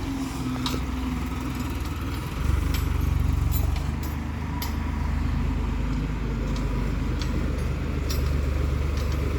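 Diesel engine of a JCB 3DX backhoe loader running as it works, getting louder about two and a half seconds in, with short sharp clanks now and then.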